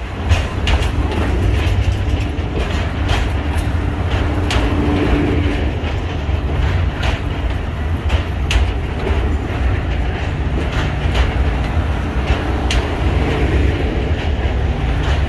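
A narrow-gauge passenger train rolling slowly past, pushed by a diesel locomotive at the rear: a steady low engine rumble and hum, with sharp irregular clicks and clanks from the wheels on the track.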